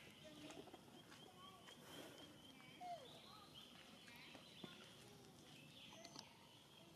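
Near silence: faint outdoor ambience with a few short, faint animal chirps and calls.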